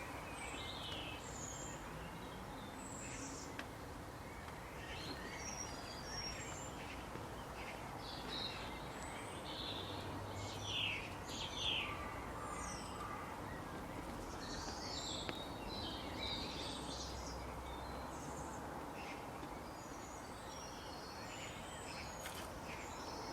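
Wild birds chirping and calling, many short scattered calls over steady outdoor background noise.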